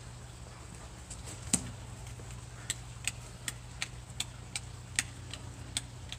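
A dog chewing at a thick rope swing: a run of short sharp clicks from its bites on the rope, one louder snap about one and a half seconds in, then about three clicks a second.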